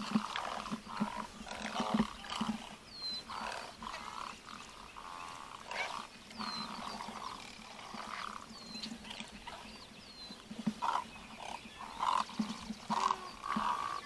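Many harsh, guttural croaking calls overlapping from a crowd of great egrets and herons, coming irregularly throughout, with a few short high whistled notes that drop in pitch.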